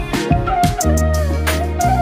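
Background music: a melody over sustained bass notes and regular percussion hits, with a new bass note coming in about a second in.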